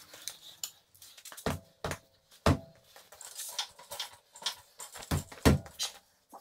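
A few sharp metal clanks and knocks, some ringing briefly, from tools being handled at a car wheel; the loudest come about two and a half and five and a half seconds in.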